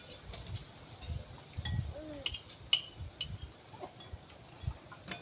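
Spoons clinking against china plates now and then during a meal, with a few low knocks and rustles in between.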